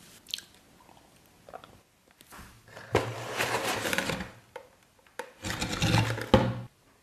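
Cardboard pizza box being opened and handled: two long rough scraping rubs of cardboard, each lasting a second or two, the second one ending abruptly near the end.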